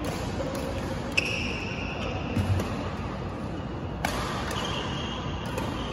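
Badminton rackets striking a shuttlecock during a rally, two sharp hits about a second in and about four seconds in, each followed by a brief high squeak of shoes on the court, over the steady noise of a large sports hall.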